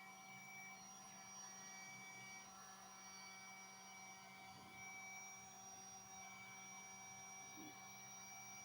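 Heat gun running, heard faintly: a steady low hum with thin high whining tones from its small fan motor.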